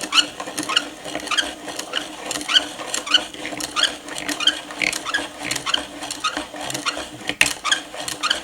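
3D-printed plastic hand drill being cranked, its hex bit boring a hole in wood: a rhythmic squeaking chirp, about two or three a second, over a steady whirr from the turning gears.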